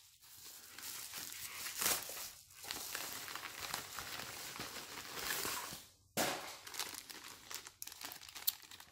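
A padded paper mailer being torn open and crumpled by hand, in irregular crackling bursts with a sharp burst about six seconds in, then the lighter crinkle of plastic zip-lock bags being handled near the end.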